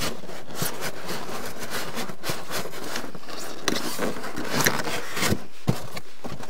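Polystyrene foam packing scraping and squeaking against a 3D printer's aluminium-extrusion gantry frame as the frame is worked out of its foam cutout, with a few sharper scrapes past the middle.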